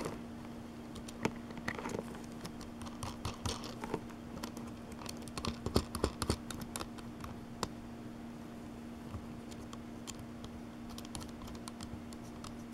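Scattered light clicks and taps of hands handling a multimeter and its test leads, busiest and loudest around the middle, over a faint steady hum.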